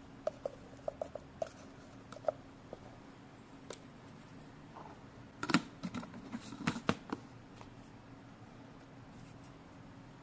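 Light plastic clicks and taps from a plastic shaker cup as chocolate protein powder is scooped into it, with a louder cluster of knocks and taps a little past halfway.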